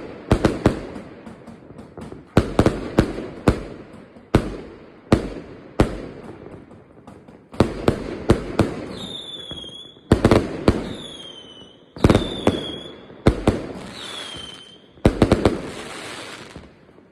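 Fireworks going off in quick clusters of sharp bangs and crackles, every second or two. In the second half several whistles fall in pitch as they fly.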